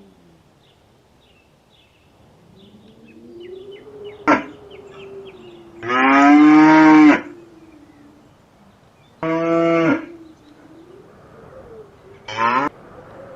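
Cattle mooing: four loud moos, one short, one long of about a second, one mid-length and one short, with fainter, more distant lowing in between.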